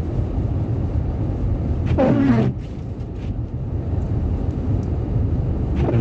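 Steady low rumble of a car's engine and tyres heard from inside the cabin while driving. A brief voice sound, falling in pitch, comes about two seconds in.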